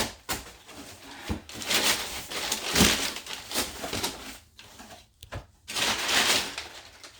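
A cardboard box and its packaging being handled and opened: irregular rustling and scraping with a few sharp knocks.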